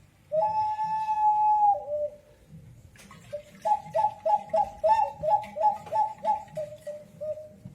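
Peruvian ceramic whistling pot sounding a long steady whistle that drops in pitch at its end. After a short pause it gives a bird-like warbling call, flipping between two pitches about three times a second and settling onto the lower note near the end.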